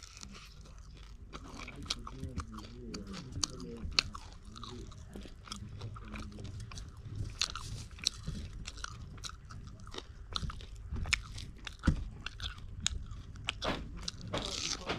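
Close-up eating sounds: a person biting into and chewing fried fish and rice by hand, with irregular crunches and wet mouth clicks.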